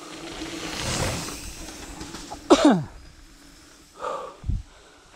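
Mountain bike rolling fast down a stony dirt trail past the camera, its tyres crunching over gravel, louder about a second in. About two and a half seconds in, a loud sudden sound slides steeply down in pitch, then two shorter sounds follow near the end.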